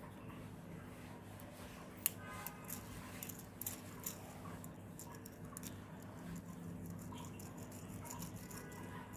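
Small plastic building bricks clicking and rattling as they are handled and fitted together: a run of light, irregular ticks, the sharpest about two seconds in, over a faint steady hum.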